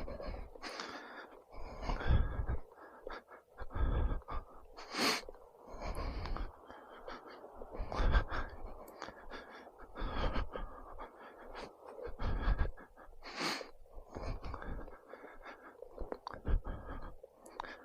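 A person breathing close to the microphone while walking, with irregular breaths every second or two and low thumps of movement under them.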